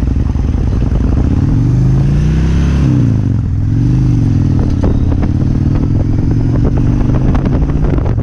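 Kawasaki Vulcan 1600 V-twin engine accelerating under way. Its pitch climbs, drops sharply about three seconds in as it shifts gear, then rises briefly and holds steady at cruise.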